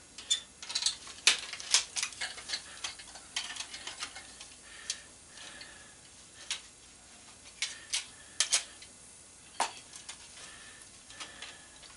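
Irregular sharp clicks and snaps of pliers prying apart a small plastic-and-metal circuit-board assembly taken off a CRT monitor's tube neck. The clicks come thick in the first half, then only a few scattered snaps.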